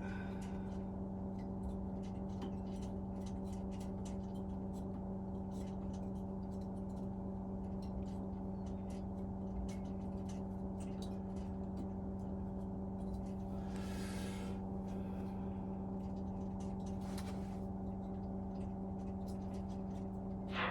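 Many light, irregular metallic ticks and clicks as thin heat-exchanger fins on a boiler are bent back straight with a tool, with a brief scrape about two-thirds of the way through. A steady low electrical hum runs underneath.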